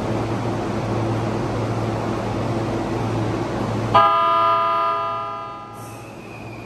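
E531 series electric train standing with a steady hum, then about four seconds in a loud horn blast nearly two seconds long, the departure signal; after it a faint whine slowly falling in pitch.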